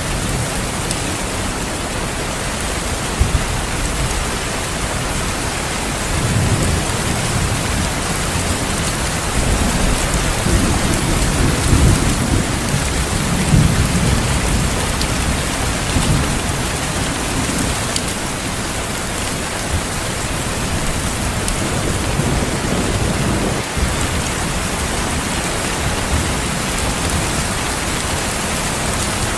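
Steady heavy rain with low rolling thunder, which swells about a fifth of the way in and again around the middle before easing back.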